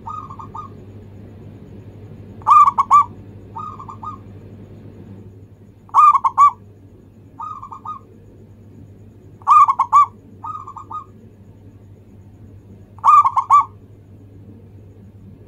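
Zebra dove singing its cooing song: four loud phrases, each of three quick coos, about every three and a half seconds, with a softer short coo following each phrase.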